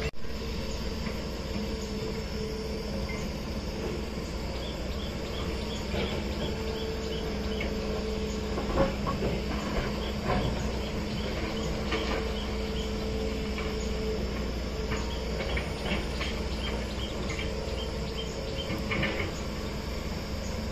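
Excavators' diesel engines running with a steady low hum. Runs of quick high ticks come in twice, about a third of the way in and again near the end.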